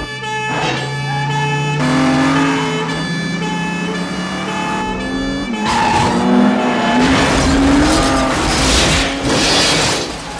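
Film car-chase sound: a BMW M5's engine running hard, its pitch rising and falling. About six seconds in, a loud stretch of skidding tyres and scraping begins as it rubs against a police car.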